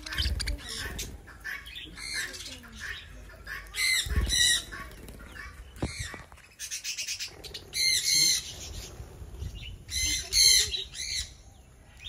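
Budgerigars chattering: irregular bursts of sharp squawks and warbling chirps, several birds calling over one another.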